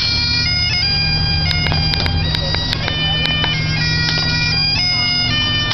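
Highland bagpipes playing a tune: the melody steps from note to note over the pipes' steady low drone.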